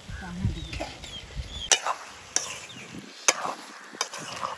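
A wooden spoon stirring chunks of stingray in a metal cooking pot, knocking against the pot four times with short sharp clacks.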